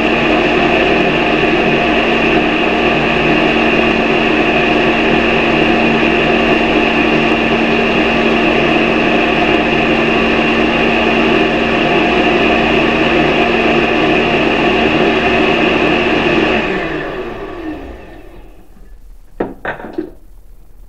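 Countertop blender running at a steady speed, puréeing whole guavas with milk. About sixteen seconds in it is switched off and spins down with a falling pitch, followed by two light knocks near the end.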